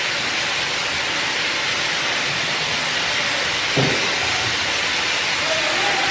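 Sambar pouring from a steel tank's tap into an insulated container, under a steady hiss of kitchen equipment, with one clunk a little under four seconds in as a container is handled.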